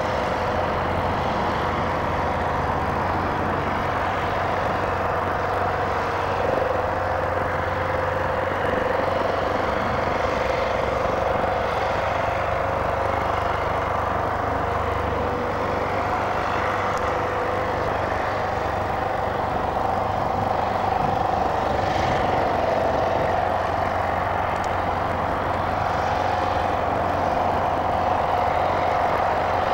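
ATG AT-10 blimp's engines and ducted propellers running steadily at low power while the airship is held on the ground, a continuous drone whose pitch shifts slightly about halfway through.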